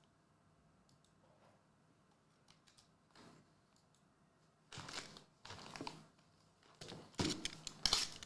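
A few faint clicks, then from about five seconds in a foil trading-card pack wrapper crinkling and tearing open in a series of loud rustles.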